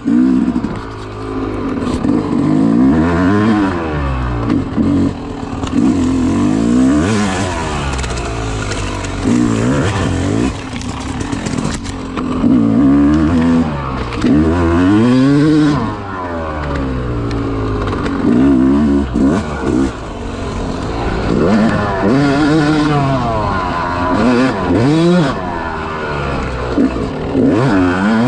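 Yamaha YZ250 two-stroke dirt bike engine, heard from on the bike. It revs up and drops back again and again as the rider works the throttle through the gears.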